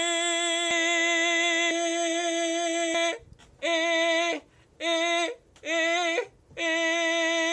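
A voice singing one long held note, then breaking it into four shorter notes at the same pitch, each with a slight wobble.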